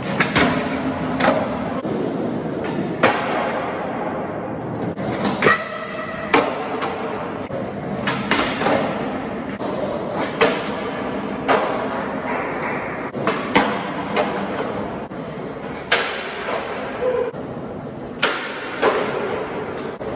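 Skateboard wheels rolling on smooth concrete, broken by a dozen or more sharp cracks and clacks of the board popping, hitting the ground and landing, one every second or two, in a concrete parking garage.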